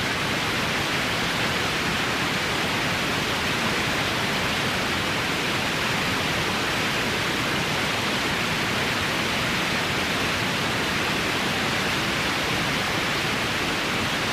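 Steady white-noise hiss, even and unchanging in level, brightest in the upper middle of the range.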